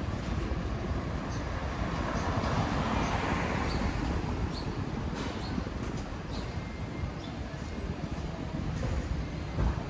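City street traffic rumble with a passing vehicle swelling about two to three seconds in, a few faint high chirps in the middle, and a short thump near the end.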